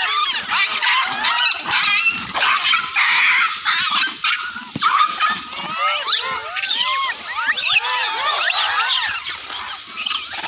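A group of animals making many short, high-pitched, overlapping squeals and chirps, one after another without pause.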